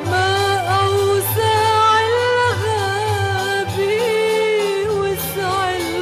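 An Arabic love song: a woman's voice holds a long, ornamented sung line, wavering and gliding between notes, over a steady pulsing bass accompaniment.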